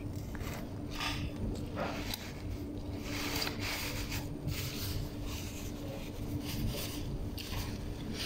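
A person puffing out short breaths and sniffling, her nose running from spicy food, with tissue and handling rustle. The breathy puffs come irregularly, about every half second.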